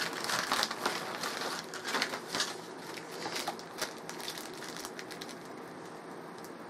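Small plastic zip bags of electronic components crinkling and rustling as they are handled, busiest in the first couple of seconds and thinning out after that.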